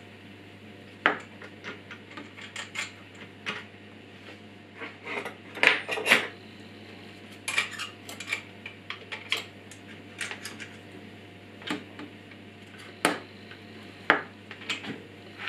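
Irregular metal clicks, clacks and knocks from a Parkside PWS 125 E4 angle grinder and its Powerfix metal cutting stand being handled and adjusted by hand, the grinder switched off. The loudest cluster of clacks comes about six seconds in.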